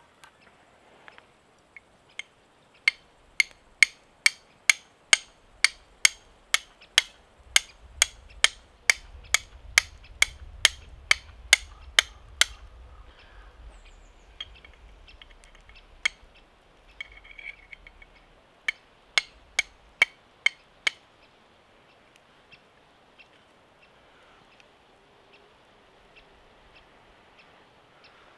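Flint and steel being struck again and again: a sharp click about two or three times a second for some ten seconds, then one more strike and a short burst of five after a pause. It is throwing sparks onto charcoal to catch an ember.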